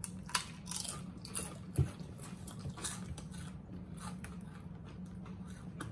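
Doritos tortilla chips being chewed: a run of irregular crisp crunches, with one louder thump about two seconds in, over a low steady hum.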